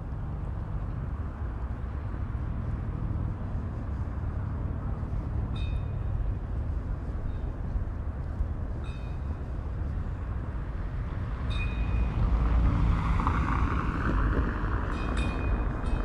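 Windy city street sound: a steady low rumble of wind and traffic that swells about twelve seconds in, with four short high squeaks spread through it.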